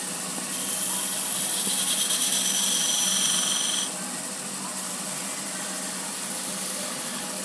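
Wood lathe running with a steady hum while a turning tool cuts a spinning, thin-walled wooden goblet. From about half a second in to nearly four seconds in the cut is louder, a hiss with a high whistle, then it drops to a lighter cut.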